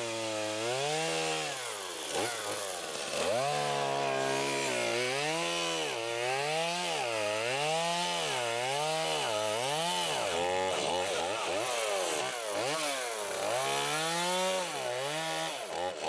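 Two-stroke chainsaw running at high revs while cutting into a small standing tree trunk, its engine pitch repeatedly dipping and recovering about once a second as the chain bites into the wood.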